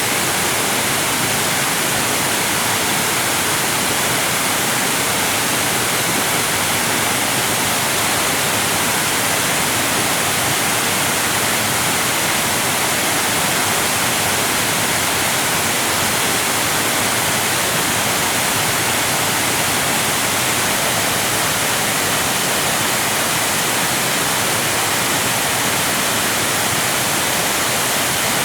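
Waterfall: water cascading in a steady, unbroken rush with no change in level.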